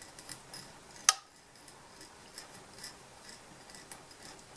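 Faint, irregular light ticks of a bobbin holder and tying thread being wound around the hook to form the fly's head, with one sharper click about a second in.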